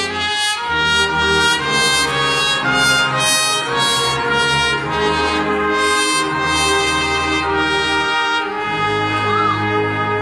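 Trumpet solo over a full brass band accompaniment, the soloist holding sustained, ringing notes above a steady low-brass bass.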